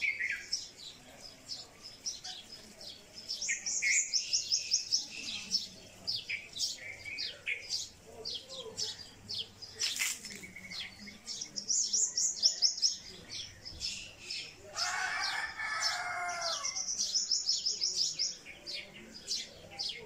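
Songbirds chirping and singing in garden trees, with fast high trills that come three times and a lower, repeated call from another bird for about two seconds late on. A single sharp click about halfway through.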